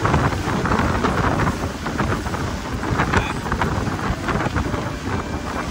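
Wind buffeting the microphone over the rush of water from a motorboat running at speed, with a heavy low rumble throughout.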